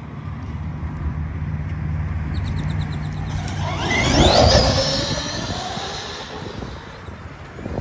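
A vehicle passing close by on the road: it grows louder over the first four seconds, peaks about four seconds in, then fades as its pitch drops. A rapid ticking is heard briefly just before the peak.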